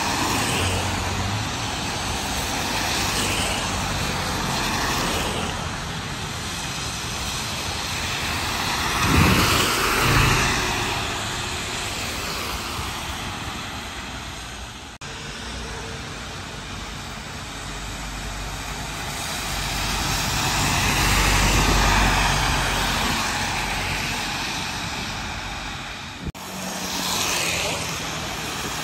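Buses and other road traffic passing on a rain-wet road: engines running with a steady hiss of tyres on the wet surface, swelling as vehicles go by, loudest about a third of the way in and again about two-thirds in. The sound jumps abruptly twice, about halfway and near the end.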